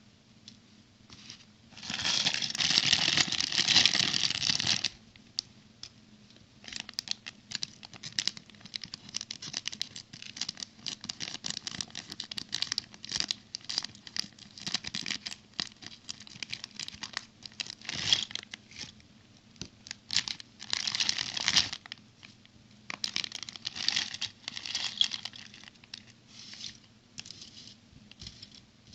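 Plastic packaging crinkling and tearing while small plastic building bricks click and rattle as they are handled. The loudest crinkling comes about two seconds in and lasts a few seconds, with another burst past the twenty-second mark and scattered small clicks between.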